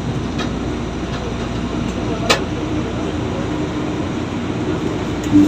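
Cabin running noise of a JR 205 series electric commuter train in motion: a steady rumble of wheels on the track with a faint steady hum, and one sharp click about two seconds in.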